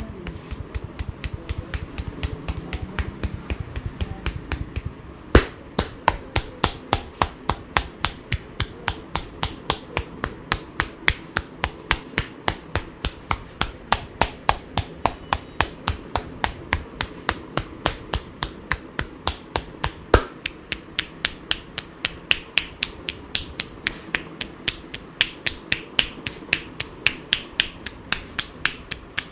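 Rapid percussive hand massage: the barber's hands strike in quick slaps, about four a second, in an even rhythm. Two louder single knocks stand out, one about five seconds in and one about twenty seconds in.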